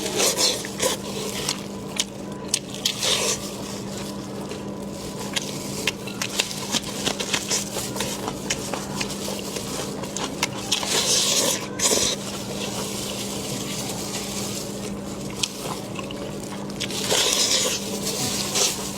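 Close-up eating of spiced sheep's head: wet sucking and slurping at the meat and bone, with many small smacking clicks and a few longer hissing slurps, one about halfway and one near the end. A steady low hum runs underneath.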